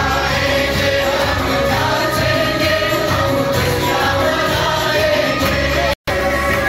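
A crowd singing a Christian worship song together over loud live band accompaniment that includes an acoustic guitar. The sound cuts out for an instant near the end.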